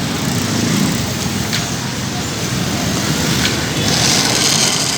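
Busy street noise: steady traffic and engine sound mixed with indistinct background chatter, with a couple of faint sharp clicks.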